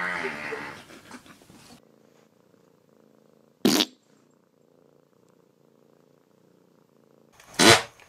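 A drawn-out wavering pitched sound fading out over the first two seconds, then a cat hissing twice, two short sharp hisses about four seconds apart.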